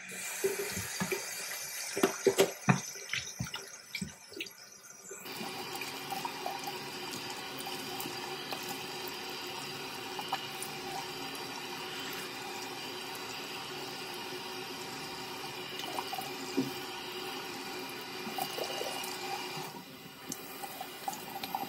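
Bathroom sink tap running, with splashing as warm water is put on the face. There are sharp splashes and knocks in the first few seconds, then the stream runs fuller and steady from about five seconds in.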